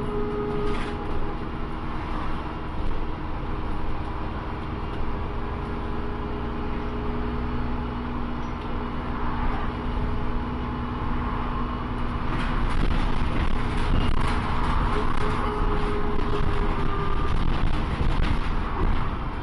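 Dennis Trident 2 double-decker bus with a Voith automatic gearbox, heard from inside while under way: a steady drone of engine and driveline with a constant whine. About twelve seconds in it grows louder, with rattling from the body.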